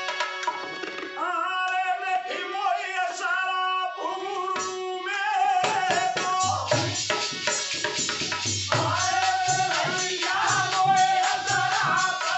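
Folk devotional music: a harmonium holds steady chords under a man's singing, and about halfway through a hand drum and jingling percussion come in with a quick, driving rhythm.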